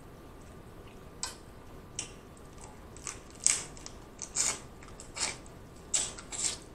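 Close-miked eating of king crab legs: about nine short, sharp, wet clicks and smacks as meat is bitten and pulled from the shell, the loudest about three and a half seconds in.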